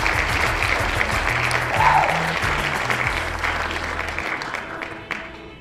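Crowd applause over background music with a bass line; the bass drops out a little after four seconds in and the applause fades away towards the end, with a short high tone about two seconds in.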